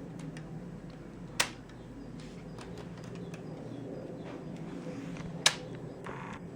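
Two sharp clicks about four seconds apart, with a few faint ticks, over a steady low hum.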